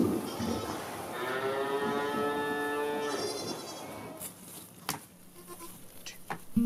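A goat kid bleating once, one long call of about two seconds, followed a little later by a few sharp clicks.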